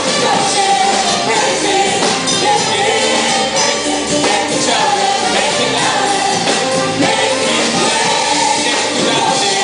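Upbeat worship song with a singing voice or choir over a full band, tambourine and cymbals keeping a steady beat.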